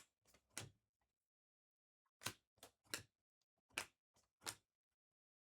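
Trading cards being handled: short sharp clicks and swishes of cards being flipped and set down, in three quick groups of two or three.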